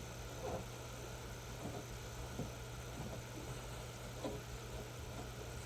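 Steady low machinery hum with a few faint clicks and knocks scattered through it, like parts and tools being handled.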